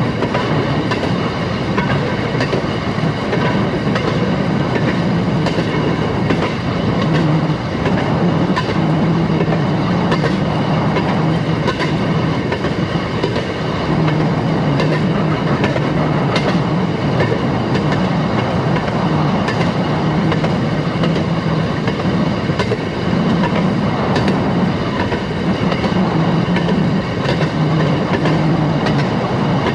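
Railroad motorcar (speeder) running along the track: a steady engine drone with the wheels clicking over rail joints.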